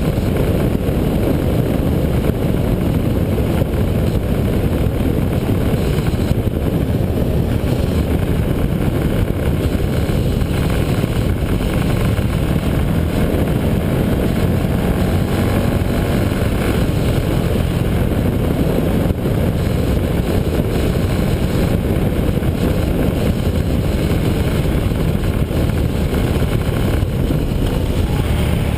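Motorcycle riding at speed: steady wind rush on the microphone over the engine running underneath.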